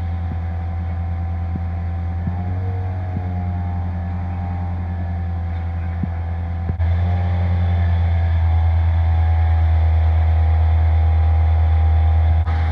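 An engine running at a steady speed: a low hum with a fainter higher whine over it. The sound jumps louder about seven seconds in.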